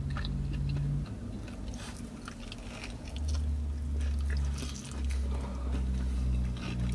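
Someone biting into and chewing a taco dipped in consommé, with small wet mouth and handling sounds over a low steady hum.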